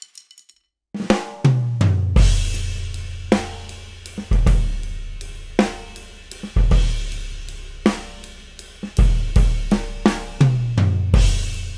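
Drum kit played with open, long-ringing toms on fresh Evans clear G12 batter heads over clear G1 resonant heads, with crash cymbals, kick and snare. The fills step down in pitch from high tom to floor tom, each tom sustaining a deep ring. It starts about a second in after a brief silence.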